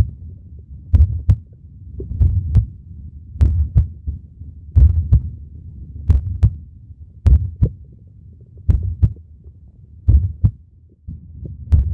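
Heartbeat sound effect: paired low thumps in a lub-dub rhythm, one pair about every second and a half, each thump with a sharp click on top.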